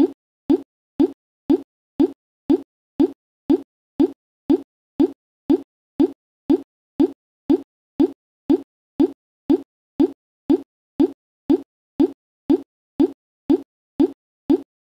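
A short, low-pitched blip repeating with machine-like evenness, two a second, like a looped electronic plop sound.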